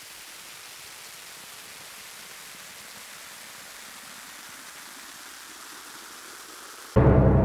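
A steady, even hiss like static, with no events in it. Loud music cuts in suddenly near the end.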